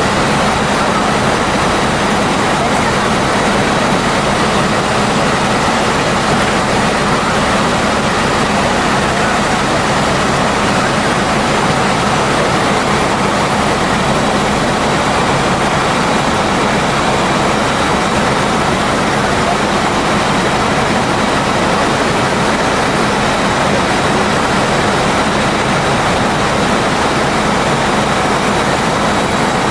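Helicopter in flight heard from inside the cabin: a loud, steady rush of engine and rotor noise with a constant low hum underneath.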